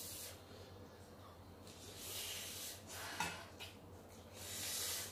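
Sharp breaths hissed in and out through the mouth, about four of them, against the burn of extra-spicy Samyang ramen; near the end, noodles are slurped.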